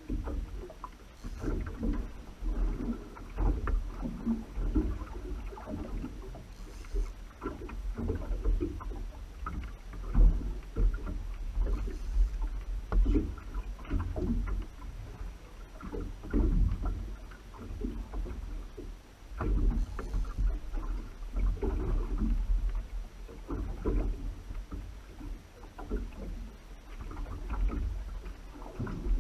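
Sea water sloshing and slapping around a fishing boat, an uneven wash of noise over a low rumble, with no engine tone.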